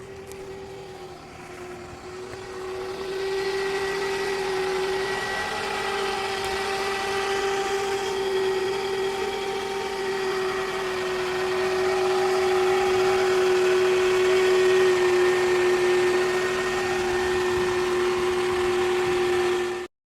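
Failing alternator on a 2004 Toyota Camry, giving a steady whine over the running engine and growing louder about three seconds in. The alternator is bad.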